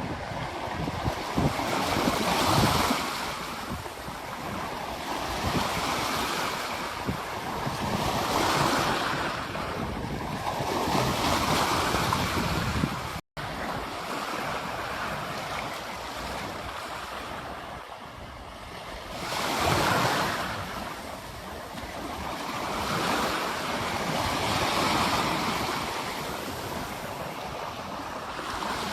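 Ocean surf breaking and washing up on a beach, swelling and falling back every few seconds. The sound cuts out for an instant near the middle.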